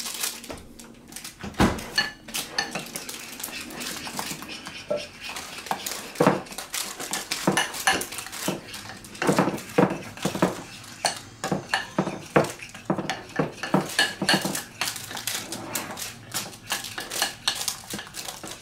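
Irregular clinks, taps and scrapes of kitchen utensils and dishes on a counter, with sharper knocks scattered throughout.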